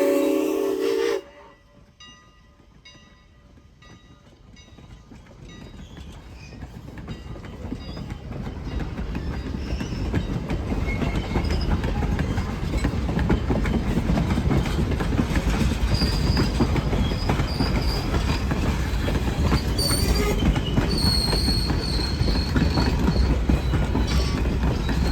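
Strasburg Rail Road No. 89's steam whistle, which cuts off about a second in, then the train's rumble and rail clatter building steadily as it approaches and passes. High thin wheel squeals come in during the second half.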